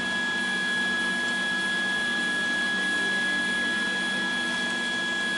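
A machine running steadily, a constant hum with a thin high whine that does not change.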